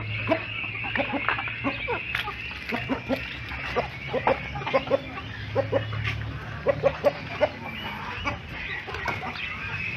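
Farmyard chickens clucking: short clucks in quick runs, over a steady high drone and a low hum.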